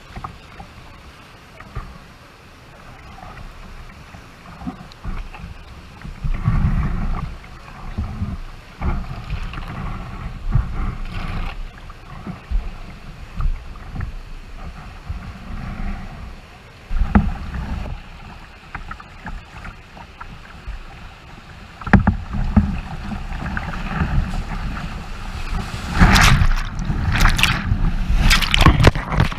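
Whitewater rapids rushing and splashing around a kayak, with wind buffeting the microphone. The splashing grows louder near the end as the kayak tips onto its side in the whitewater.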